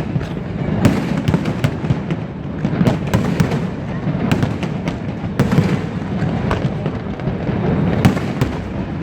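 Aerial fireworks display: a continuous rumble of shell bursts with many sharp bangs, about one every second or so, the loudest near the middle and about eight seconds in.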